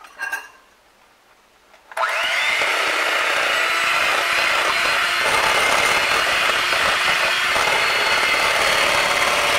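Electric hand mixer switched on about two seconds in, spinning up quickly and then running steadily with its beaters in thick cheesecake batter.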